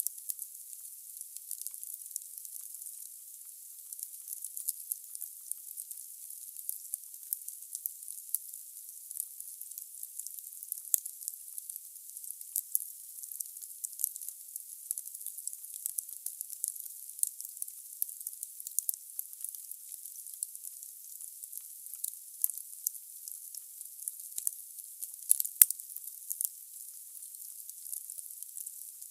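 Wood fire burning in a fireplace: a steady high hiss with dense crackling of the logs, and one sharper, louder pop a few seconds before the end.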